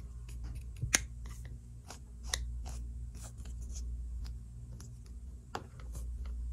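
Hinged plastic popsicle mould being handled and opened: a run of light plastic clicks and taps, the sharpest about a second in, and a duller knock near the end as it is set down on the table.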